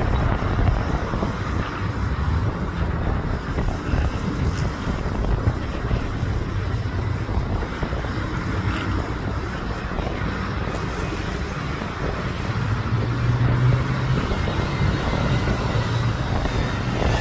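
Wind rumbling on the microphone, with a low steady drone from an approaching aircraft's engines coming up in the last few seconds.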